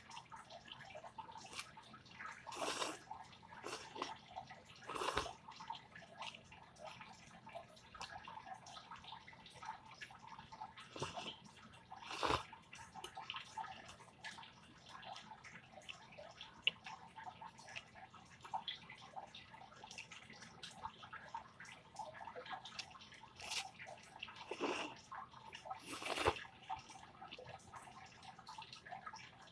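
Water trickling and dripping, with scattered small splashes and a few louder short bursts.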